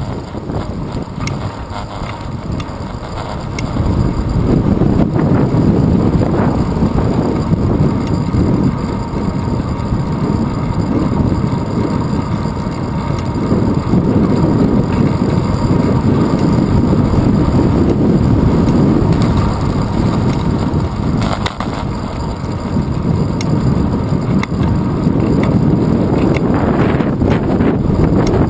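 Wind buffeting a handlebar-mounted GoPro Hero 2's microphone with road and tyre rumble from a bicycle riding along a paved road. The rush swells about four seconds in, dips briefly about three-quarters through, then rises again, with a couple of brief knocks near the end.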